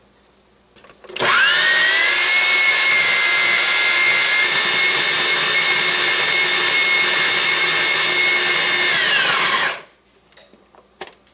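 Electric food processor motor starting about a second in, whining quickly up to a steady high pitch and running for about eight seconds as it grinds onion, green chillies and fresh coriander into a paste, then winding down and stopping. A single sharp click follows near the end.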